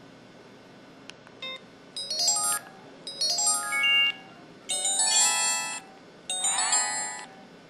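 Built-in sound effects of an IM-6200 mobile phone: four short electronic jingles, each about a second long, mostly quick runs of rising notes with short pauses between.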